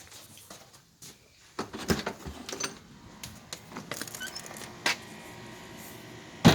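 Irregular clicks and knocks of handling or movement, starting about a second and a half in, with one sharp, loud knock near the end.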